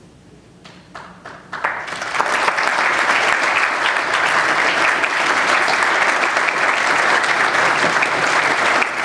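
Audience applauding in an auditorium: a few scattered claps at first, then about a second and a half in the whole crowd joins in with steady clapping.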